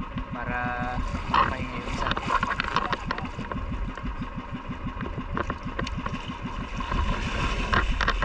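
Small boat engine running steadily with a fast, even chugging pulse.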